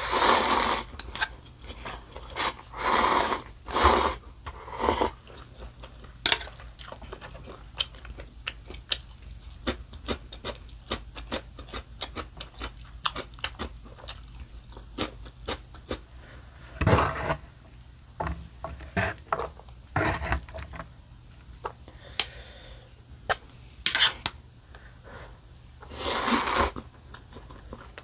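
Close-up eating sounds: spicy instant noodle broth slurped from a small bowl, then steady chewing with small wet clicks. Several more loud slurps follow, the longest near the end as a mouthful of noodles is sucked in.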